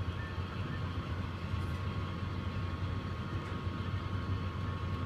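Model freight train's covered hopper cars rolling steadily over a model girder bridge: an even low rumble of wheels on track with a thin steady whine above it.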